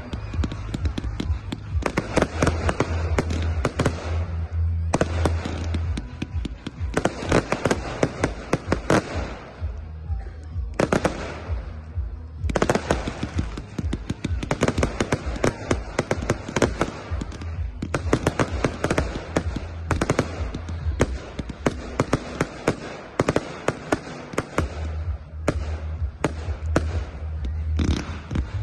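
Aerial fireworks going off in rapid succession: a dense run of bangs and crackles, with short lulls about ten and twelve seconds in.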